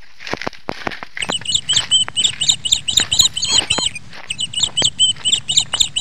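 Footsteps crunching on loose stones, and from about a second in a fast series of high chirping calls from a small animal, about four or five a second, with a short break near the middle.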